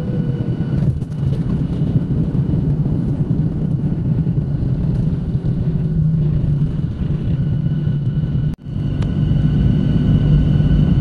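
Steady low rumble of a jet airliner's cabin noise, its engines and wheels rolling on the runway and taxiway. It cuts out for an instant about eight and a half seconds in, then resumes slightly louder.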